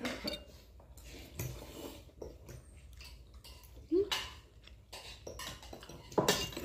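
Quiet eating sounds: chewing with light clicks of utensils on a plate, and a short rising vocal sound about four seconds in.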